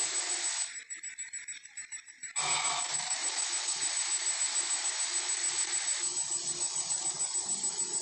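Tyrannosaurus sound effect from an animated film soundtrack: a harsh, rushing, rough noise. It drops away about a second in and comes back strongly at about two and a half seconds.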